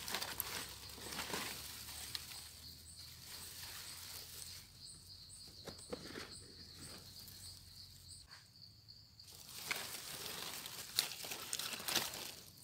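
Rustling and crackling of dry leaves and grass as a gloved hand works through the forest floor picking mushrooms, with a steady high insect drone behind it that stops about three quarters of the way through.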